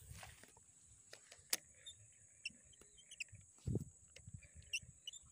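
Faint rustling and soft knocks of a person pushing through tall grass while handling a fishing rod, with scattered light clicks, one louder thump a little past the middle, and a few faint high chirps.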